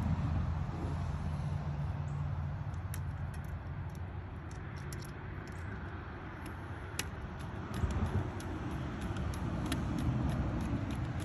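Small screwdriver tightening wire lugs into the screw terminals of a PWM motor speed controller, giving scattered faint metallic clicks and ticks. A steady low rumble runs underneath and is the loudest part.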